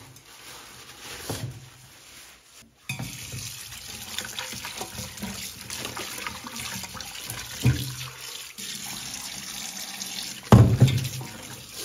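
Kitchen tap running into a stainless-steel pot as raw chicken pieces are rinsed by hand, the water starting about three seconds in. Near the end the rinse water is poured out into a stainless-steel sink, with two loud thuds, the second the loudest.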